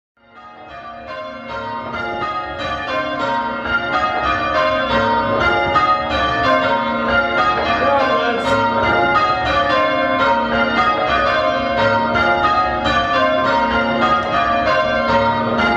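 A ring of five church bells being change-rung, struck one after another in a quick, overlapping sequence. The ringing fades in over the first few seconds and then runs steadily.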